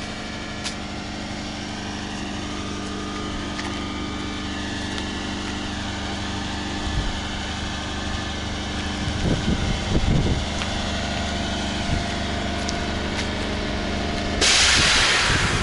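Steady hum of a passenger train standing at the station, with a sudden loud hiss about a second before the end.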